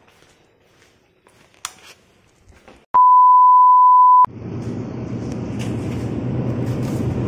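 A loud, steady 1 kHz test-tone beep, the tone that goes with TV colour bars, lasting about a second and a half and cutting off sharply. It gives way to a steady hum and hiss of a supermarket's refrigerated produce shelves. Before the beep there are only faint handling noises and a click.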